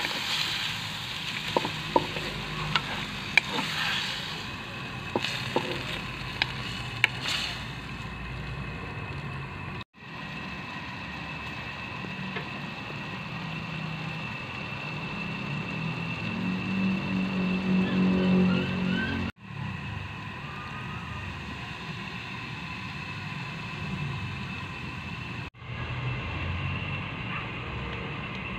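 Squid sizzling as it fries in a wok, with a spatula clicking and scraping against the pan during the first several seconds. A low hum swells briefly in the second half, and the sound drops out for an instant three times.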